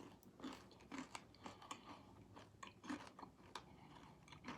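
Faint, irregular crunching of someone chewing a mouthful of Crunch 'n Munch caramel-coated popcorn.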